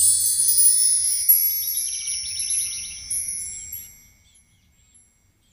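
Background music: a high, shimmering chime sound that fades out over about four seconds, leaving near silence at the end.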